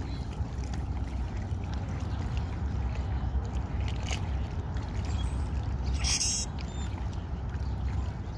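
Steady low wind rumble on the microphone over choppy river water lapping at the shore, with a brief hiss about six seconds in.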